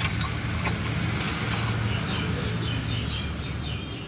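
Old engine oil pouring in a steady stream from the sump drain hole into a plastic catch container, just after the drain plug is removed. Birds chirp in the background in the second half.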